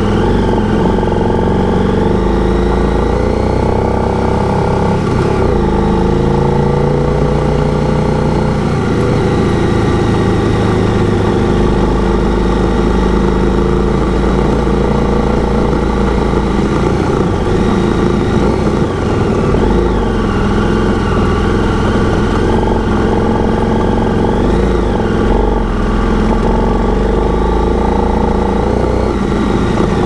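KTM 990 Adventure's V-twin engine running under way, its pitch stepping and sliding up and down several times with throttle and gear changes.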